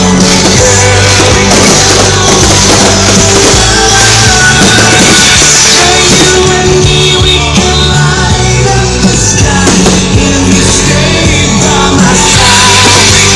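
Loud rock music with singing over a heavy, sustained bass line.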